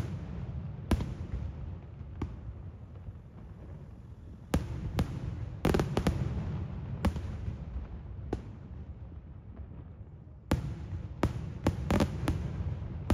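Daytime aerial fireworks shells bursting in sharp bangs that come in two clusters of quick reports, with a lull of about three seconds between them and a low rumble lingering after the blasts.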